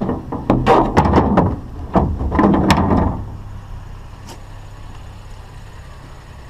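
Metal wire shelving clanking and rattling as it is handled, with a rapid run of knocks over about three seconds. A vehicle engine idles steadily underneath.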